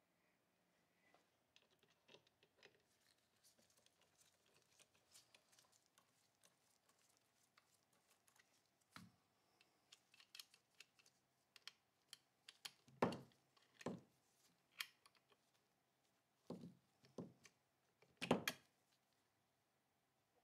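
Faint scattered ticks and taps, then several sharper metallic clicks and knocks in the second half, the loudest two near the middle and near the end, as a gloved hand handles an old Remington .22 pump-action gallery rifle and unscrews a small knurled screw from its steel receiver.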